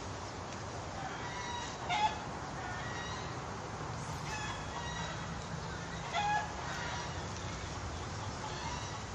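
Chickens calling nearby: several short clucking calls, the loudest about two seconds in and again past the middle, over a steady low background hum.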